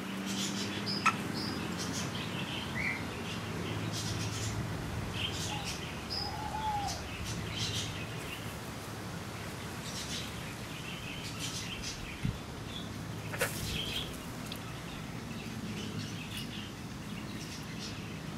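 Birds chirping on and off, with a few short soft calls from foraging hens and a steady low hum underneath.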